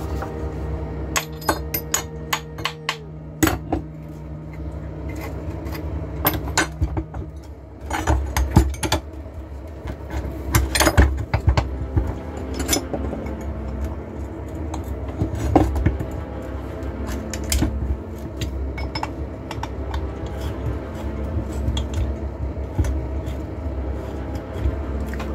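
Metal tools and engine parts of a moped engine being handled on a wooden workbench: irregular metallic clinks, taps and knocks. The heaviest knocks come about eight to eleven seconds in and again about fifteen seconds in.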